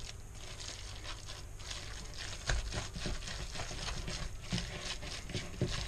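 Hands squeezing and kneading a wet cutlet mixture of grated potato, egg, ham and breadcrumbs in a bowl: irregular soft squelches and clicks over a low steady hum.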